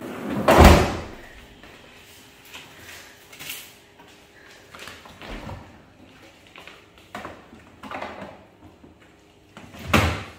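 A refrigerator's pull-out freezer drawer sliding shut with a loud thud about half a second in, followed by scattered small knocks and rustles of things being handled in the fridge, and another loud knock near the end.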